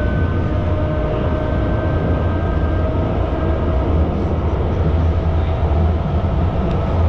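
Light-rail passenger train running: a steady low rumble with a thin whine that rises slightly in pitch.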